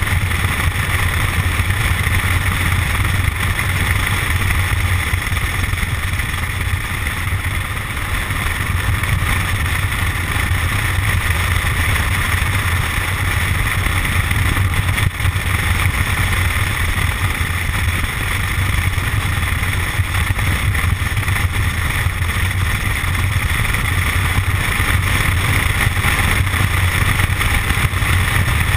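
Suzuki Boulevard C50's 805 cc V-twin engine running steadily at cruising speed, with wind rushing over the helmet camera.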